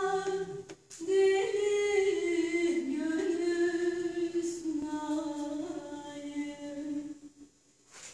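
A woman singing a Turkish folk song (türkü) unaccompanied, in long held notes with small turns of pitch. The phrase ends about a second before the end, with a short pause for breath.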